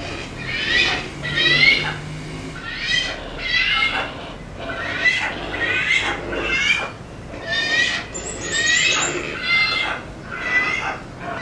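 Young hornbills giving food-begging calls while being hand-fed: a run of short, pitched calls, roughly one a second and sometimes in quick pairs, each rising and then falling.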